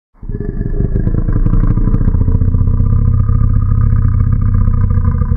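Low monster-like growl made from a cow-noise sample pitched down 70% and slowed to half speed, its loudness pulsing about eight times a second from a tremolo effect. It starts just after the beginning and holds steady.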